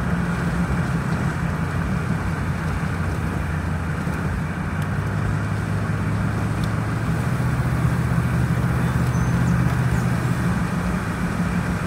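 Truck driving at steady speed: a low, even engine hum with road noise.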